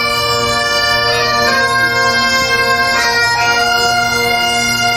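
Breton pipe band playing bagpipes: a slow tune of long held notes over a steady drone.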